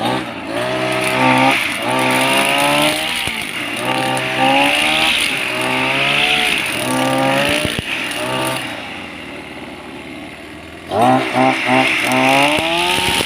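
Robin NBT415 twin-cylinder two-stroke brush cutter with a nylon trimmer-line head, revved hard in repeated throttle surges, its pitch rising and falling. It settles to a lower, quieter run about nine seconds in, then revs up again near the end.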